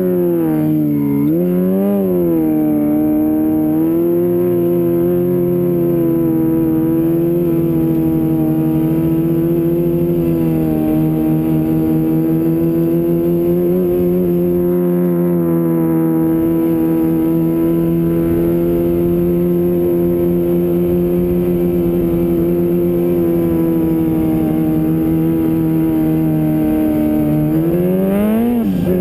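Snowmobile engine running at a steady cruising speed. Its pitch dips and comes back up about a second in, then holds level, and near the end rises briefly and drops.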